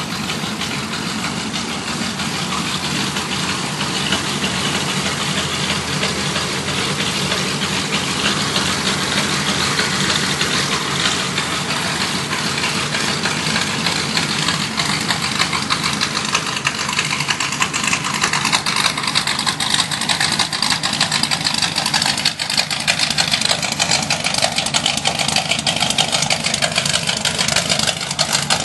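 Ford 8BA flathead V8 in a 1929 De Soto race car idling steadily through its open exhaust. The engine grows louder in the last third, nearer the exhaust outlets in the tail.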